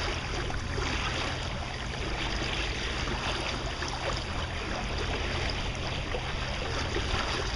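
Steady rush of water and wind aboard a sailing yacht under way.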